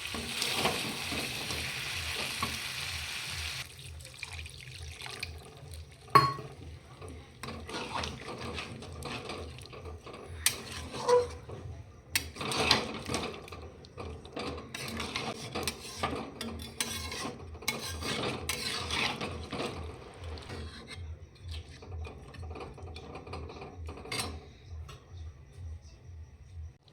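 Chicken sizzling in a hot pot for the first few seconds, then a spatula stirring and scraping against the pot, with scattered knocks of metal on metal.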